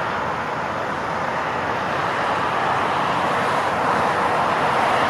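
Steady highway traffic noise of cars driving past, a continuous rushing of tyres and engines that swells slightly toward the end.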